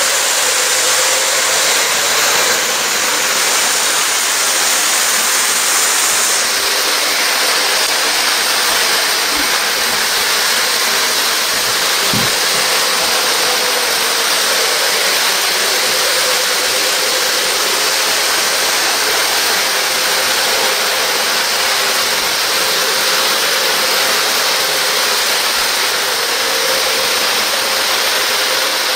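Electric model train running on its track, a steady rolling rumble and whir, with one soft knock about twelve seconds in.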